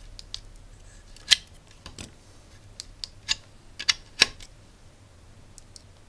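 Several sharp clicks and small scrapes of USB plugs being pulled out of and pushed into a USB meter while one load board is swapped for another, with the loudest clicks about a second in and about four seconds in.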